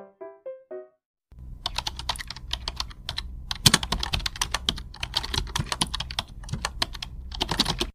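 The last few notes of background music, then after a brief gap, fast typing on a computer keyboard: a dense, irregular run of key clicks over a low steady hum.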